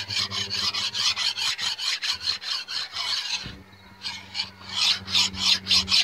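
Fine-tooth flat file rasping back and forth across the cast-iron deck of a Chevy 3.1 litre V6 engine block, in quick strokes about five a second with a short break about halfway through. The file is truing the head-gasket surface, catching and taking down the high spots.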